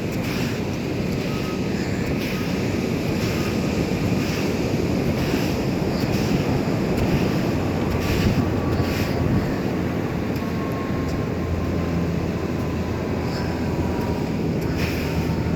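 Wind buffeting the microphone over surf noise, joined by a steady low engine drone that grows stronger in the second half, with a faint high tone slowly falling in pitch.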